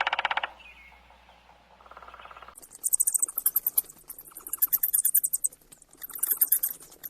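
Rats squeaking: clusters of high-pitched, rapid chirping squeaks that start about two and a half seconds in and come again and again. At the very start, a loud burst of fast rattling tapping ends within half a second.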